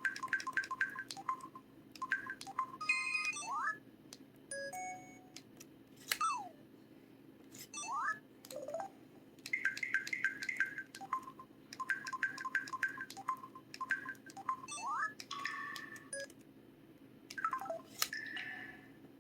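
LG-KC3500 mobile phone playing its built-in sound effects: runs of short electronic beeps, broken by several quick chirps that sweep up or down in pitch.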